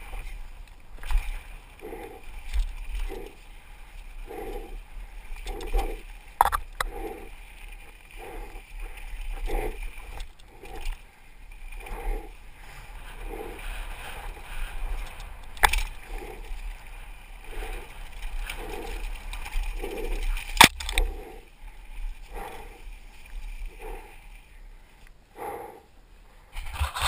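A downhill mountain bike rolling down a dirt trail, heard from a helmet camera: low rumble of tyres and air, a regular pulsing about one and a half times a second, and a few sharp clacks from the bike over bumps.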